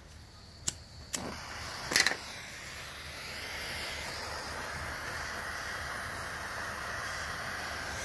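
A couple of sharp clicks, a short louder burst about two seconds in, then a gas blow torch's flame hissing steadily as it heats a copper Anderson plug lug for soldering.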